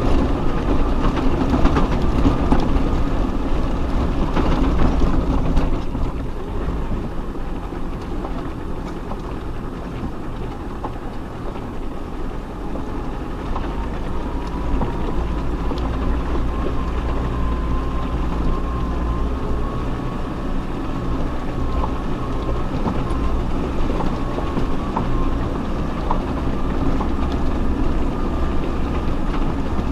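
Off-road 4x4 vehicle crawling over a rough, rocky track: a steady low engine rumble with scattered knocks and rattles from the body and suspension. It gets a little quieter about six seconds in.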